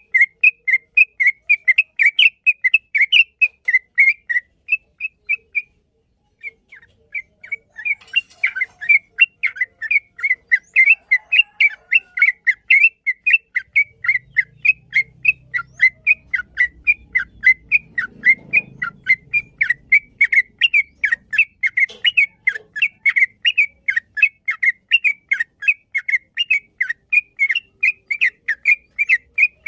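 Yellow-vented bulbul (trucukan) singing a long, rapid run of short whistled notes, about three to four a second, broken once by a brief pause about six seconds in.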